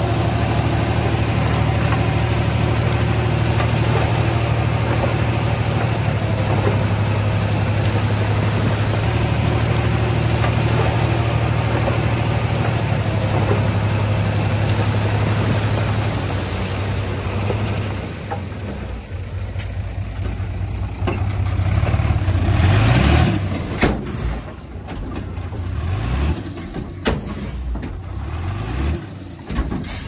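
Heavy diesel engine of earth-moving equipment running steadily, its pitch stepping a few times. About 18 seconds in it drops away, then revs up and down with scattered knocks and clanks.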